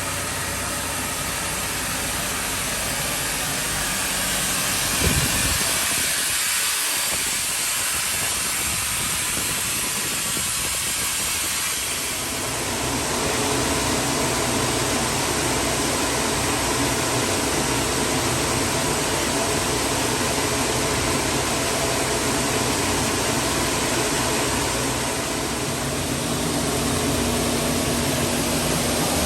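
Mobile 250 HP steam boiler running: a steady mechanical rumble with a strong hiss over it. A brief knock comes about five seconds in, and a steady low hum sets in about halfway through.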